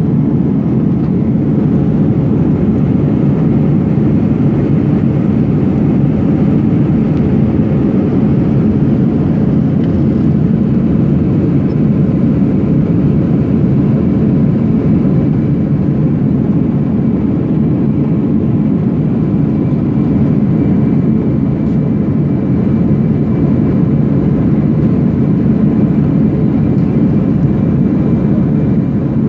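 Steady cabin roar of an Airbus A321-200 in flight shortly after take-off, heard from a window seat: engine and airflow noise, strongest low down and unchanging, with a faint steady high whine.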